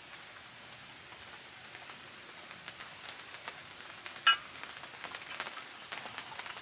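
Rain pattering steadily on a tent, with one sharp, ringing metallic clink about four seconds in, from the stainless steel cups or carafe being handled.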